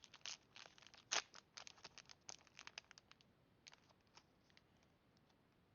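Foil booster-pack wrapper of a Pokémon trading card pack crinkling and crackling faintly as it is opened, in quick rapid crackles for about three seconds, then only a few scattered ones.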